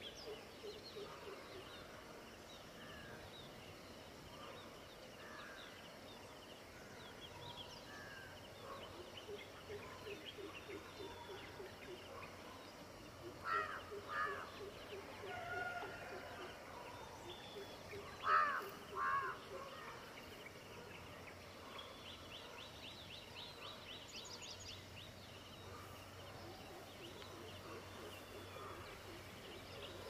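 Dawn chorus of many birds chirping and calling. A louder two-note call comes twice about halfway through, and a rapid high trill sounds a little after that.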